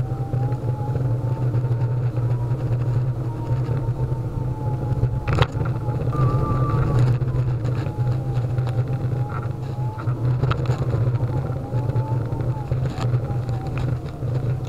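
Solowheel electric unicycle riding on pavement: a steady low rumble with a thin motor whine whose pitch drifts gently up and down with speed. There is a single sharp click about five seconds in.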